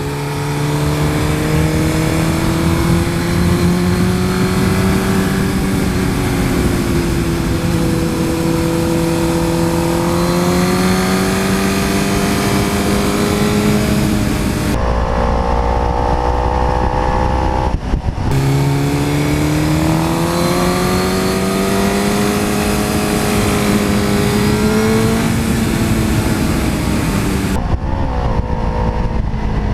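Sport motorcycle engine recorded by a camera on the bike, with wind rush; the engine pitch climbs and drops repeatedly with the throttle through a run of corners. The sound changes abruptly three times as the footage switches between the two bikes' cameras.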